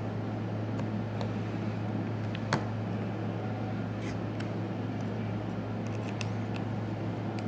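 Small sharp clicks and taps of tools and parts being handled during smartphone reassembly, about seven scattered through, the loudest a little past two and a half seconds in, over a steady low hum.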